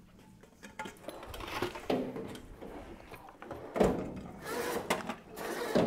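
Someone rummaging off-camera through a workshop while searching for ear muffs: irregular knocks, clatter and bangs of things being moved and opened, growing louder, with two sharper bangs about two and four seconds in.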